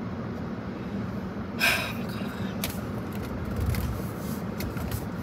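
Steady hum of a car's air conditioning running inside the closed cabin. A short breathy exhale comes about one and a half seconds in, and soft rustles and knocks follow as a steering wheel cover is handled.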